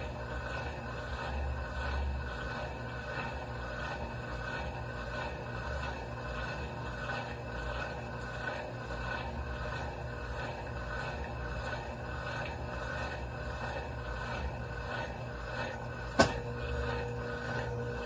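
Consul CWE13AB top-load washing machine running with a steady hum while its drum is still, then a sharp click about 16 seconds in, followed by a steady motor whine as the spin starts.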